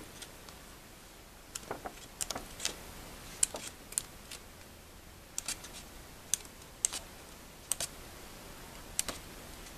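Sheets of a patterned scrapbook paper pad being flipped over one after another, each page turn giving a short, crisp paper snap, about a dozen at uneven intervals.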